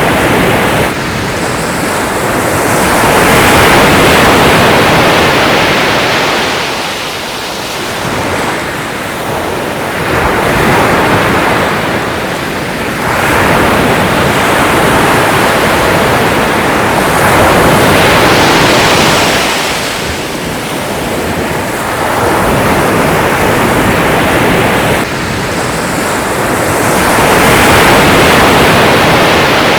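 Sea waves breaking and washing in, a loud rushing surge that swells and fades again every several seconds.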